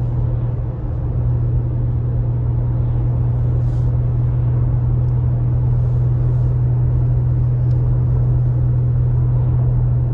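Steady road noise inside the cabin of a moving car: a constant low hum of engine and tyres on asphalt.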